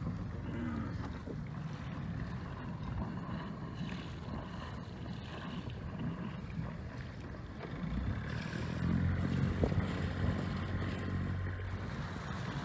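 Boat engine running steadily: the sea-rescue boat towing a disabled sailboat alongside. The engine note grows louder from about eight seconds in as the boats come close, then eases near the end, with some wind on the microphone.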